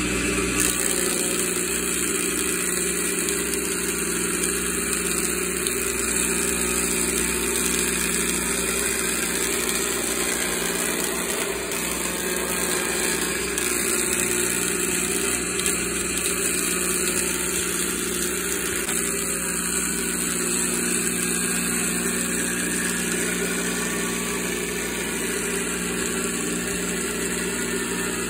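Industrial thickness planer running steadily with a constant motor hum and a hiss of cutting while a hardwood beam feeds through it.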